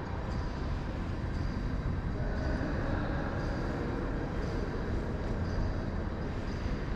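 Steady low rumbling background noise of a large hall, with faint light ticks about once a second.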